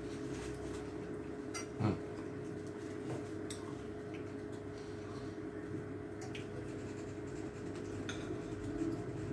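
Faint clinks and knocks of a plate and food being handled, with one short thump about two seconds in, over a steady low hum.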